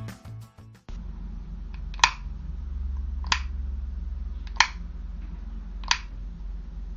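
Four sharp clicks, evenly spaced about a second and a bit apart, over a low steady hum that starts about a second in: a household object being clicked repeatedly.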